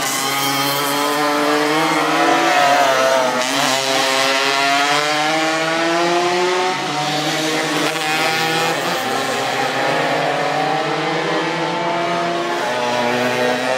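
Several small two-stroke Tomos racing mopeds running hard past at once, their engine notes overlapping and repeatedly climbing in pitch and then dropping.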